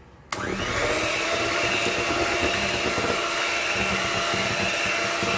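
Hanabishi electric hand mixer switched on just after the start, its pitch rising as the motor spins up, then running steadily at high speed with its beaters in thin cheesecake batter.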